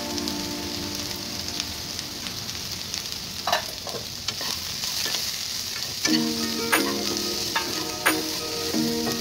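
Chopped okra and onion sizzling steadily in oil in a nonstick frying pan. A spatula stirring the pan makes several sharp clicks and scrapes against it.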